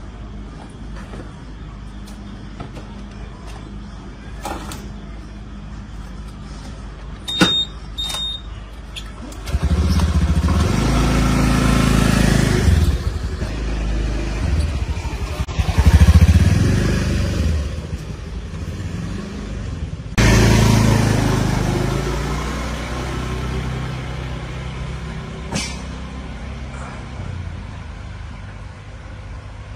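Motor vehicle engines passing close by over a steady low engine hum: two loud swells that rise and fade, the second starting abruptly a few seconds after the first, with two short high beeps shortly before the first.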